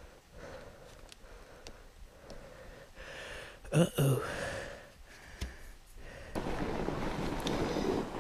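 A rider's faint breathing on a night ride, broken about four seconds in by a short startled vocal exclamation as the lamp cuts out from a faulty power cord. From about six seconds a steady rush of riding noise and wind on the microphone sets in.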